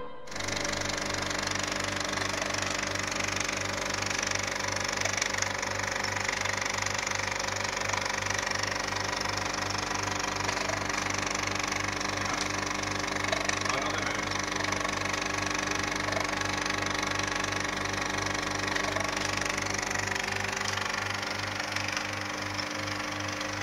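A motor running steadily: a constant mechanical hum with a regular low throb that does not change in speed.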